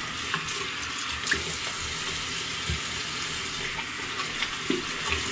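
Bathroom sink tap running steadily, with a few light splashes as the face is rinsed after the first pass of a razor shave.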